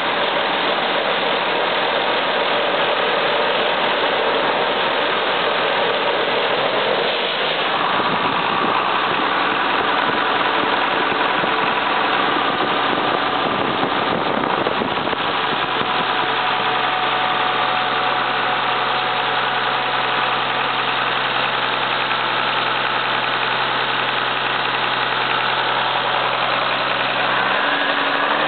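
John Deere 6068T six-cylinder turbo diesel power unit running with no muffler. Its engine note changes in a step about seven seconds in and again near the end.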